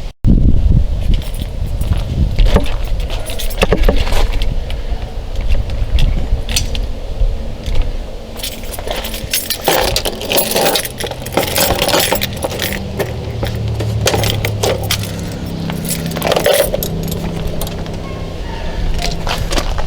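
A bunch of keys jangling, with repeated metal clinks and clicks, over a low rumble and a steady low hum in the second half.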